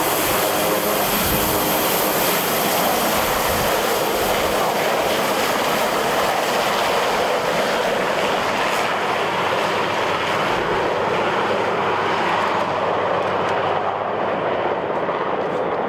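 Sikorsky VH-3D Sea King helicopter, Marine One, lifting off and climbing away: a loud, steady din of twin turbines and rotor. Its high hiss fades over the last few seconds as it moves off.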